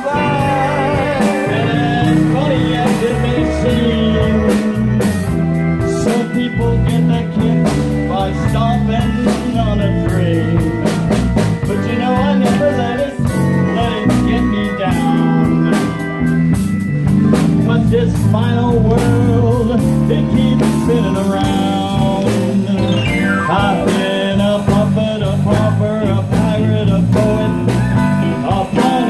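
A male singer with a live band of keyboard, drum kit and electric bass, playing a swing-style song.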